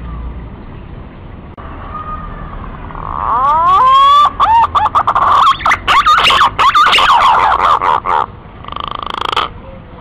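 Green pigeon (punai) song: about three seconds in, a few rising whistled glides lead into a rapid, warbling run of wavering whistles, followed by a short buzzy note near the end.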